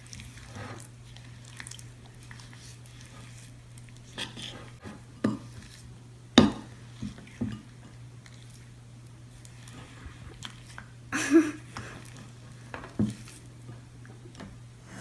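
A spoon stirring glue-and-borax slime in a bowl as it comes together: soft wet squishing with scattered clinks and knocks of the spoon against the bowl, the loudest about six seconds in.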